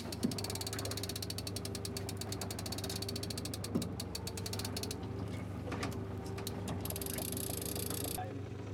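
Fishing reel's clicker ratcheting in a fast run of clicks as line is pulled off a bent rod, a sign that a fish has taken the bait. The clicking stops about five seconds in and starts again near the end. An outboard motor hums underneath.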